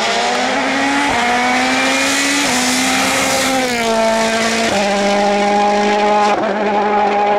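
Citroën C3 WRC rally car's 1.6-litre turbocharged four-cylinder engine at full throttle. It changes up twice on the approach, then its pitch glides down as it passes close by, and it runs on at steady high revs as it pulls away.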